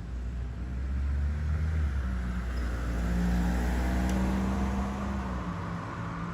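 Fire truck engine accelerating as it goes by: a heavy low rumble that builds, is loudest about three seconds in, then eases, with the low rumble dropping out near the end.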